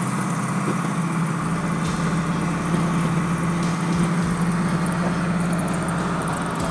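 Steady engine drone and road noise heard from inside a moving vehicle, a constant low hum with no change in speed.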